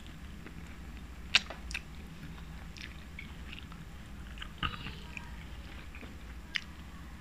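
Close-miked eating sounds of mutton biryani eaten by hand: chewing and biting into mutton, with a handful of sharp wet clicks, the loudest about a second and a half in.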